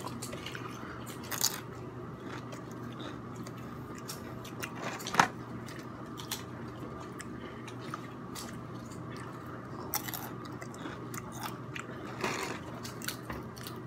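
Crunchy tortilla chips being bitten and chewed close to the microphone: scattered sharp crunches, the loudest about five seconds in. A low steady hum runs underneath.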